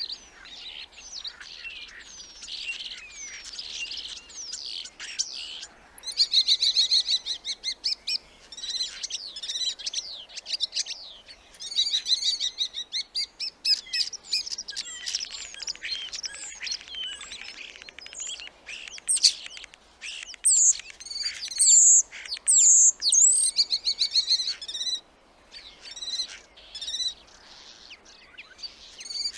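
Starling song: a long, varied run of chattering, gliding whistles and rattling clicks, with the loudest sharp whistles about two thirds of the way through.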